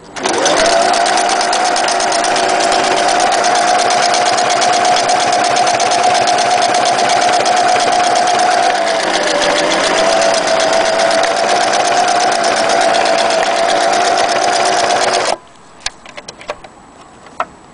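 Singer Tempo 20 electric sewing machine running at speed, stitching zigzag through denim: a steady motor whine with rapid needle strokes. The whine sags briefly in pitch about halfway through, then it stops abruptly near the end, followed by a few light clicks.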